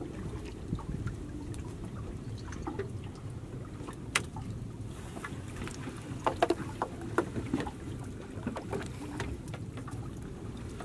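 Fishing net being hauled by hand into a wooden boat. Scattered sharp drips, splashes and light knocks come off the wet net and hull, louder in a cluster past the middle, over a steady low rumble.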